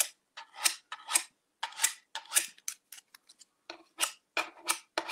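Paint being scraped through a mesh stencil onto a painted sign, a series of short scratchy strokes about two a second with a brief pause past the middle. The scraping is the sign that the paint is going through the mesh.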